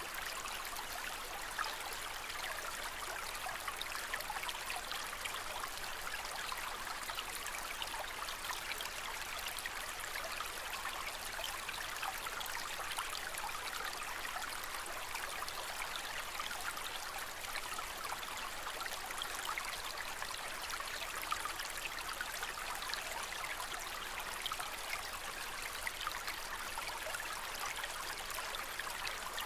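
Aquarium water trickling and splashing steadily, an even rushing hiss with fine flickering droplets.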